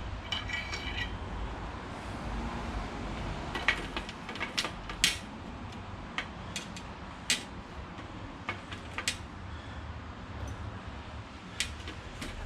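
Metal hand tools and bicycle parts clinking and knocking while the crank and bottom bracket of an old three-speed bicycle are taken apart. It opens with a quick run of ringing metallic ticks, then scattered sharp clicks over a low hum.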